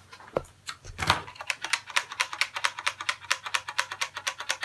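A rapid, even run of sharp mechanical clicks, about seven a second, like a ratchet, starting about a second and a half in, with a few scattered clicks before it.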